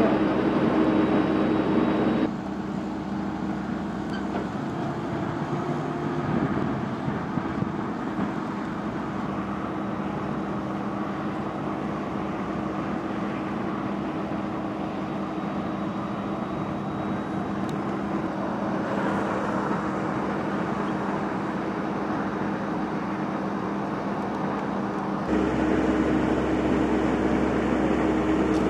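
Highway traffic noise: a steady rush of passing vehicles. A steady low hum sits over it at the start and comes back near the end, with the sound dropping abruptly about two seconds in and rising again near the end.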